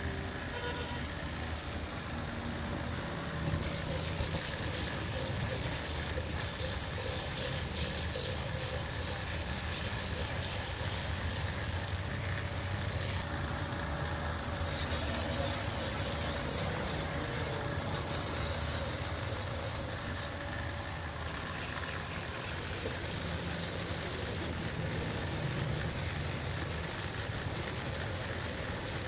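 Flexible-shaft rotary buffer running steadily, its spinning wheel grinding against tire rubber to roughen a patch for repair: a continuous motor hum under a rough scraping hiss.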